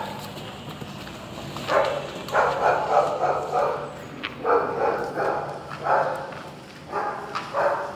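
A dog barking repeatedly, a series of short barks starting about two seconds in, roughly one or two a second.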